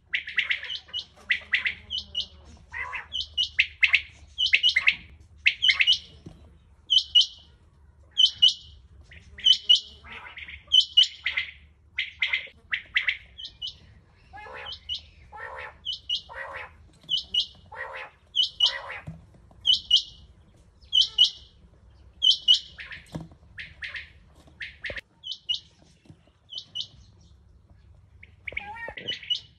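Caged rain quail calling: a sharp, high note, often doubled, repeated over and over about once a second, with lower, longer notes mixed in.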